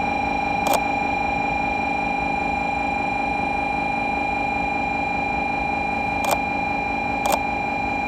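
A steady electrical whine made of several fixed pitches, unchanging throughout. It is broken by three sharp clicks: one about a second in, two near the end.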